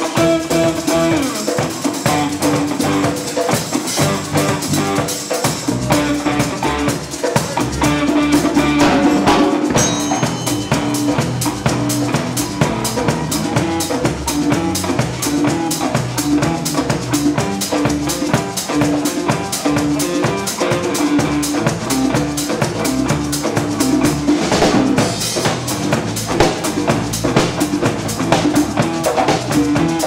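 A live band playing: a drum kit driving a steady beat on snare and kick, under electric guitar and bass playing a repeated riff.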